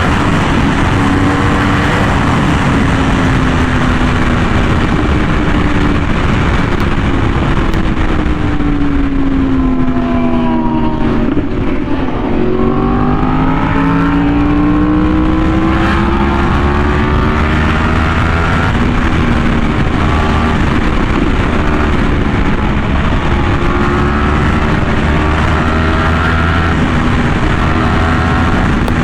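Yamaha R1M's crossplane inline-four engine running hard through an SC Project exhaust on the move. Its note sinks steadily for a few seconds before the middle of the stretch, climbs again under acceleration, then holds fairly steady with small rises and dips.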